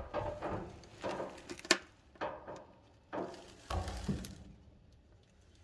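Irregular rubbing and knocking as a dryer drum is turned by hand with a loose belt slipping off it, with a sharp click about one and a half seconds in and heavier handling near the end.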